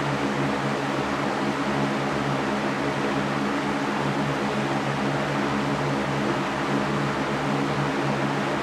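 Electric fan running steadily: an even rush of air with a low steady motor hum, unchanging throughout.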